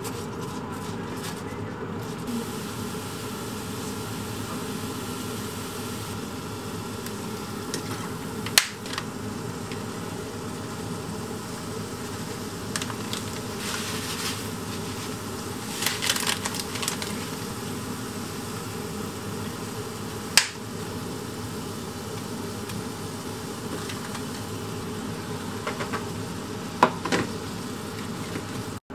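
Steady fan hum with a few sharp clicks of chopsticks knocking against a frying pan during stir-frying, three in all, and a brief rustle about halfway through.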